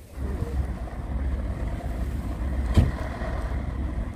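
Wind buffeting the microphone, a steady low rumble with a sharp knock about two-thirds of the way through.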